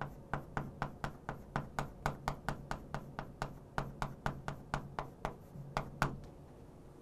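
Chalk on a chalkboard while a word is handwritten: a quick run of sharp taps, about four a second, that stops about six seconds in.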